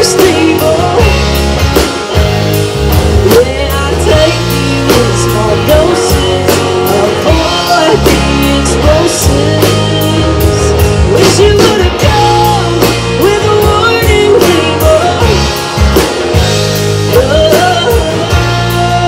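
Live rock band playing an instrumental passage: electric guitar lead with bending notes over bass guitar and a steady drum-kit beat.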